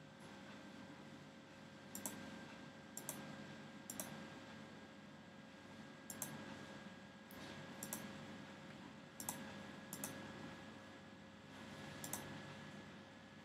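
Computer mouse button clicks, about nine sharp clicks spaced a second or two apart, some heard as a quick press-and-release pair, over a faint steady hum.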